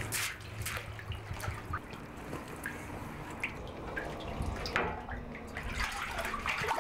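Water splashing and dripping as a long-handled landing net is dipped and swept through a fish tank, with scattered small splashes and drips.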